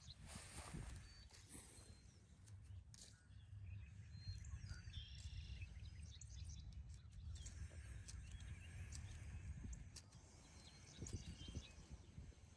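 Quiet outdoor ambience: faint bird chirps over a low rumble, with a few light clicks.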